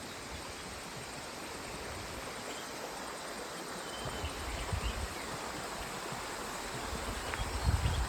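River water rushing steadily, with gusts of wind buffeting the microphone from about halfway.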